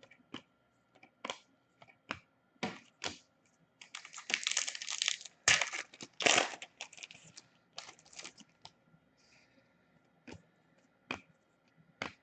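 Hockey trading cards being handled: a string of sharp clicks and snaps as cards are flicked through and set down. A denser stretch of rustling and sliding about four to seven seconds in is the loudest part.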